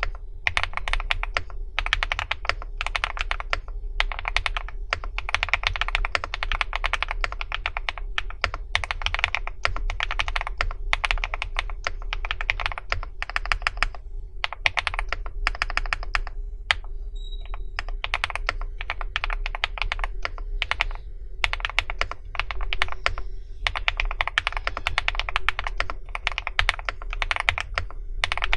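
Typing on a Meteor80 mechanical keyboard: rapid runs of keystrokes with short pauses, thinning out to a few scattered key presses for several seconds midway before fast typing resumes.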